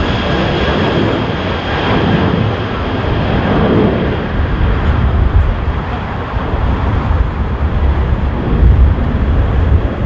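Jet airliner's engines, a steady noise with a high whine that fades over the first few seconds as the aircraft moves away. Gusty wind buffets the microphone with irregular low rumbling.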